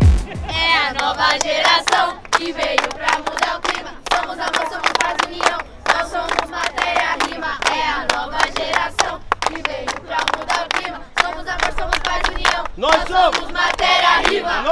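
A group of adults and children clapping their hands and chanting together.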